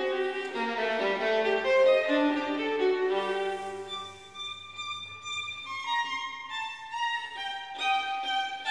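Background music: a melodic violin-led instrumental, with notes that step and change throughout.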